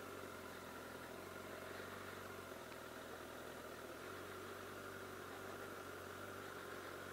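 Honda CBR1000RR Fireblade's inline-four engine running at low, steady revs while the bike rolls slowly, the note shifting only slightly in pitch.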